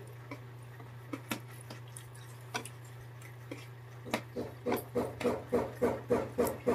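Metal spoons clicking now and then on plastic plates over a steady low hum. From about four seconds in, a louder rhythmic pulsing sound, about three a second, takes over.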